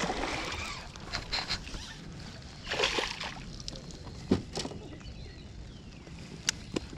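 Water splashing as a hooked fish thrashes at the surface beside the boat, louder about three seconds in, with a few sharp clicks later on.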